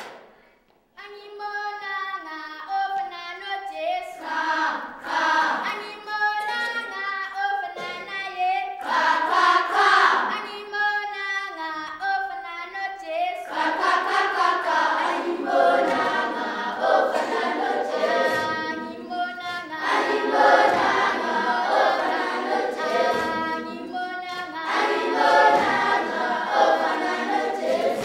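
A choir of schoolchildren singing together, led by their teacher, beginning about a second in.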